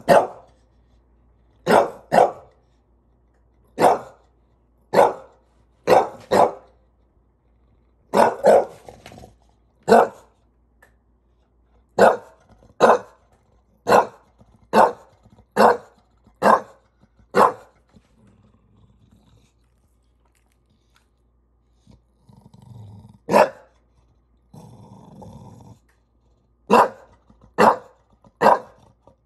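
English bulldog barking in short single barks, one or two a second. About two-thirds through there is a lull with only a few low, soft sounds, and the barking starts again near the end.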